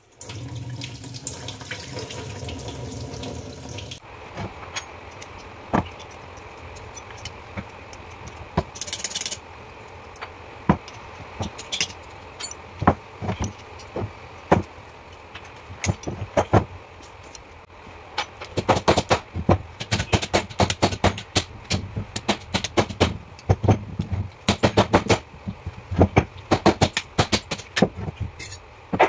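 Tap water running into a stainless-steel sink for about four seconds. After that comes a long run of sharp metallic clinks and knocks, scattered at first and then rapid and dense near the end, as a pump motor is worked on by hand among spanners, nuts and bolts.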